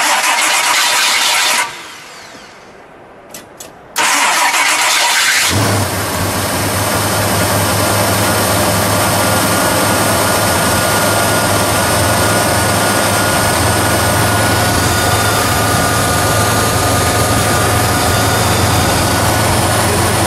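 The 428 Cobra Jet V8 of a 1969 Ford Torino Talladega being started. The starter cranks for about two seconds and stops, then cranks again about four seconds in. The engine catches about five and a half seconds in and settles into a steady idle.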